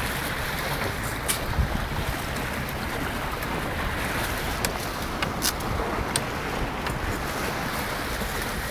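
Wind buffeting the microphone and water rushing past the hull of a sailboat running under spinnaker, steady throughout, with a few short sharp clicks and knocks on deck.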